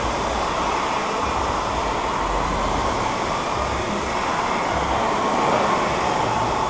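The fan flywheels of several air-resistance indoor rowing machines spinning under hard, continuous rowing, an even rushing noise.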